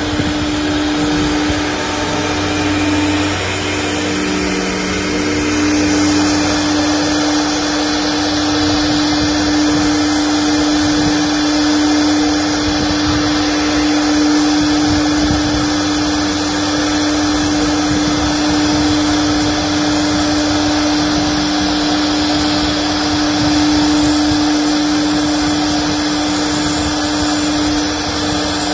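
The 4.5 kW air-cooled spindle of a 1325 CNC router runs with a steady whine as its bit cuts a wooden sheet. A hissing cutting noise grows louder about six seconds in and then holds steady.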